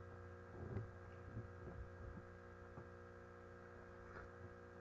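Near silence: a faint, steady electrical hum, with a few faint soft knocks in the first couple of seconds.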